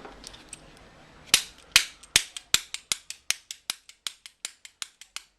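Bump key being tapped into a pin-tumbler lock: a rapid run of sharp metallic knocks, starting loud about a second in and coming faster and softer, about four or five a second. The key has dampeners fitted to set how far its teeth seat while bumping.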